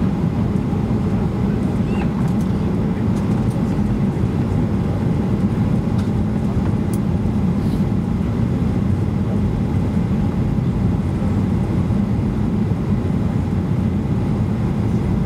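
Steady low roar inside a Boeing 737-800's cabin on final approach: the CFM56-7B turbofans and the airflow over the airframe with flaps extended, heard from a seat over the wing. The roar stays even throughout, with a few faint ticks in the middle.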